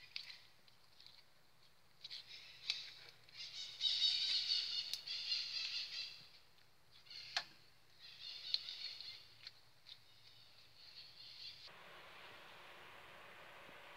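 Clear slime, tinted red, being squeezed, stretched and folded by hand: sticky, wet sounds in several bursts, loudest about four seconds in, with a sharp click or two. Near the end the handling stops and only a faint steady hiss remains.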